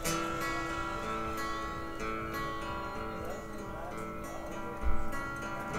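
Guitar strummed and picked, its chords ringing on between strokes. A low thump comes about five seconds in.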